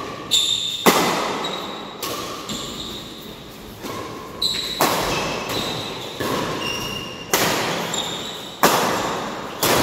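Shuttlecock struck back and forth by badminton rackets in a doubles rally: sharp hits about every one to two seconds, each echoing in a large hall, with short shoe squeaks on the court between shots.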